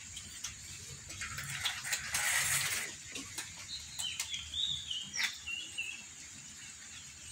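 Cats eating dry kibble off a tile floor, with scattered small clicks, a hissing noise lasting about a second and a half near the start, and a few short high wavering bird chirps a little past the middle.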